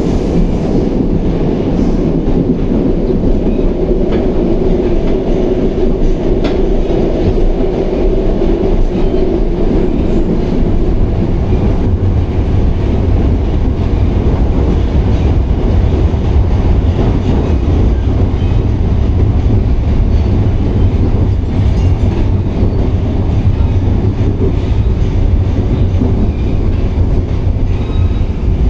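81-760A/761A 'Oka' metro train running between stations, heard from inside the car: a loud, steady rumble of wheels on rail and running gear. About halfway through the rumble shifts deeper.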